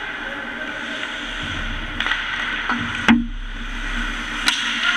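Ice hockey play: several sharp clacks of sticks and puck, the loudest about three seconds in, over a steady rink hum.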